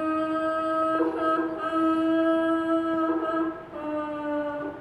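Wordless singing by a voice in a chant-like way: long held notes that move only slightly in pitch, with short breaks about a second in and again about three and a half seconds in, stopping near the end.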